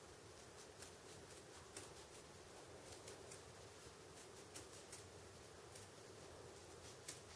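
Faint, irregular snips and clicks of scissors trimming a hair arrow rest pad, over quiet room tone.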